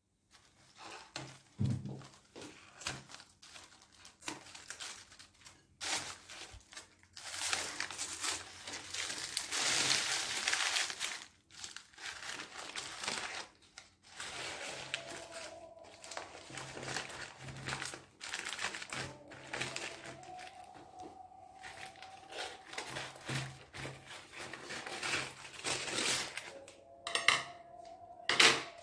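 Aluminium foil crinkling and tearing as a foil packet on a metal baking tray is cut open with scissors and pulled back, in irregular rustles that are loudest about a third of the way in.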